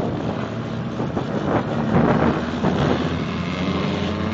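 Drag-race car engines running at a distance, a steady rumble that swells a little about two seconds in.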